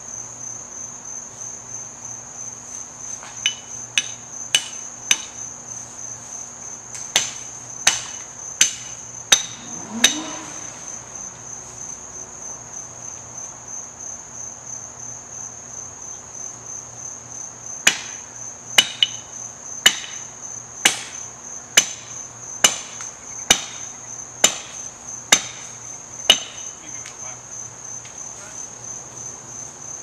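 Repeated hammer-like blows with a short ring, about one a second, in two runs: nine strikes, a pause, then ten more. Crickets chirr steadily underneath.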